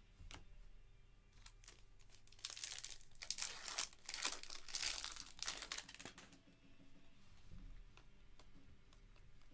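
A foil trading card pack wrapper being torn open and crinkled by hand, with a run of loud crinkling from about two to six seconds in and quieter card handling around it.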